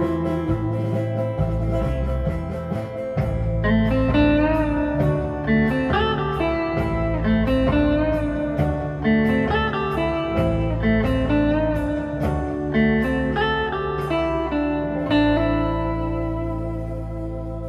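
Instrumental music: a plucked guitar melody with some bent notes over a steady bass line, fading down near the end.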